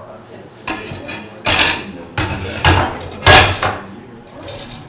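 Metal tools and parts knocking and clattering on a workbench: about five or six loud sharp clanks over about three seconds, starting about a second in, the loudest near the end.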